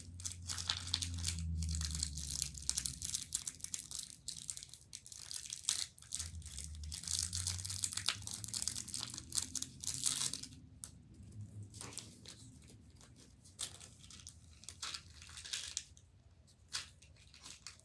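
Plastic candy wrappers crinkling and tearing as they are handled and opened. The crackling is dense for about ten seconds, then thins to a few scattered rustles and clicks.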